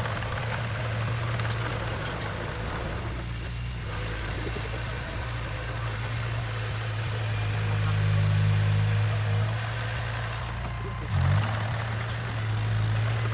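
Diesel engine of a heavy construction machine running steadily with a low drone. It swells a little past the middle and gives a brief louder burst about eleven seconds in.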